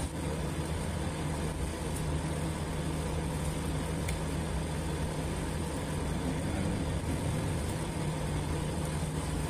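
A steady low mechanical drone, like a motor running, holding even throughout.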